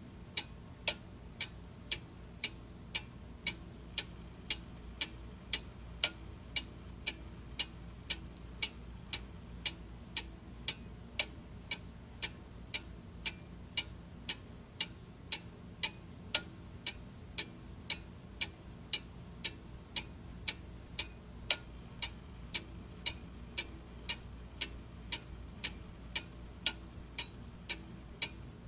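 Clock ticking evenly, about two ticks a second, over a faint steady low hum.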